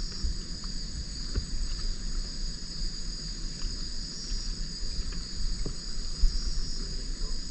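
Steady chorus of night-calling insects, a continuous high-pitched shrill, over a low rumble, with a few faint knocks.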